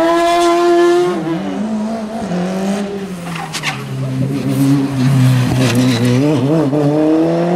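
Racing car engines at high revs: a sharp, steady high note that falls away about a second in, then a lower engine note from an open-wheel single-seater that wavers through a tight chicane and climbs again near the end as it accelerates away.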